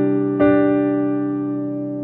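Keyboard music: a sustained chord, with a new chord struck about half a second in and left to ring and slowly fade.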